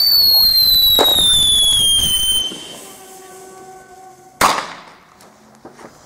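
A firework whistle, loud, falling steadily in pitch for about two and a half seconds. Then a fainter steady whistle, cut off by a single sharp bang about four and a half seconds in.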